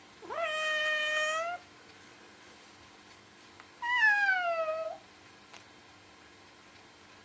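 Domestic cat meowing twice: a first meow that rises and then holds its pitch for about a second, and a second one about three seconds later that falls in pitch.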